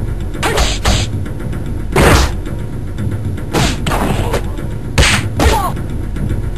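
Cartoon fight sound effects: a series of sudden punches, whooshes and thuds, the loudest about two seconds in and again at five seconds, over steady low background music.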